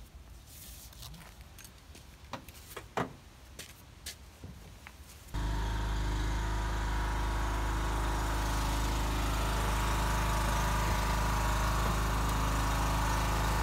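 Light rustling and a few sharp taps of a paper stencil being handled. About five seconds in, a steady engine hum with a hiss over it starts abruptly and runs on evenly.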